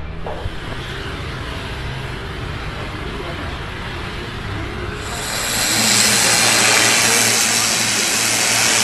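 A motor, most likely the pump feeding the hose, runs with a steady hum under the hiss of disinfectant spraying from hose lances. About five seconds in, the hiss turns suddenly louder and brighter over a steady hum.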